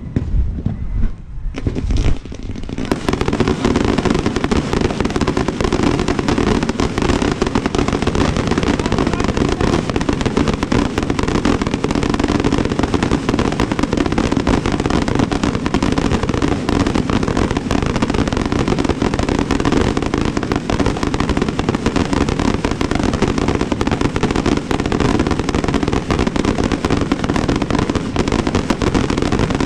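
Professional 1.3G display fireworks: a few separate bangs, then from about three seconds in a dense, nonstop rapid rattle of exploding reports. This is the show's closing barrage.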